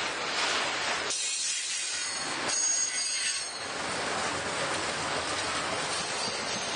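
Freight train cars rolling past on the rails, a steady rumble and rattle of wheels, with a faint high wheel squeal about three seconds in.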